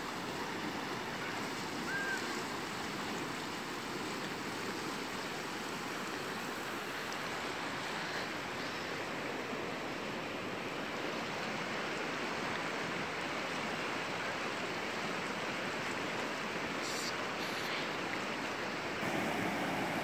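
Steady rush of fast-flowing river water over rocks, the Virgin River running high and muddy, with a faint short chirp about two seconds in.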